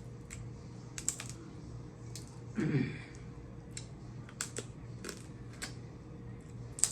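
Snow crab leg shells cracking and snapping in the hands during eating: a string of sharp, irregular clicks. A brief murmur of voice comes about two and a half seconds in.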